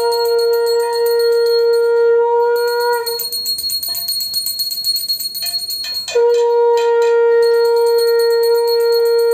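A conch shell (shankha) blown in long, steady, horn-like notes: one breaks off about three seconds in and a second starts about six seconds in. Under it, a hand bell is rung rapidly and without a break: the conch-and-bell sounding of Hindu puja worship.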